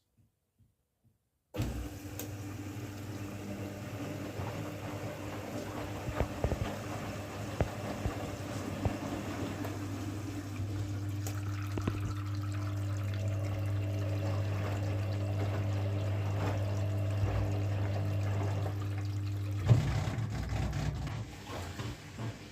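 Candy washing machine running with a steady low hum and scattered small clicks and rattles, slowly getting louder; about twenty seconds in there is a knock and the hum cuts off, leaving a fading wash of noise.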